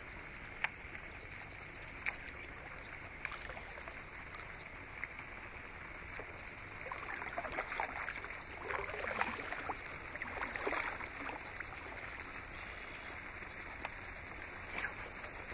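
Water lapping and trickling around a kayak hull, with a few seconds of irregular splashing near the middle. A few sharp clicks come near the start and again near the end.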